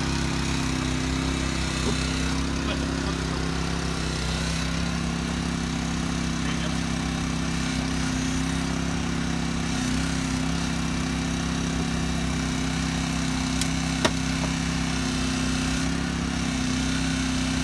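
Engine running steadily at idle, with one sharp snap late on.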